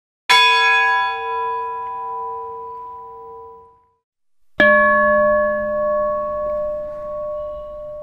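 Large temple bell struck once, ringing out for about three and a half seconds. After a short silence, a higher-pitched church bell is struck once and left ringing.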